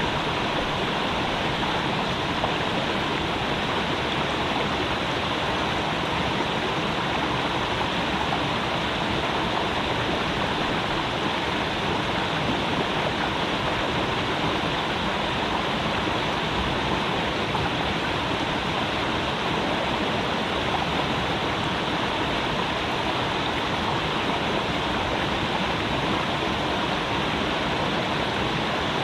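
Creek water running over rocks, a steady, unbroken rushing.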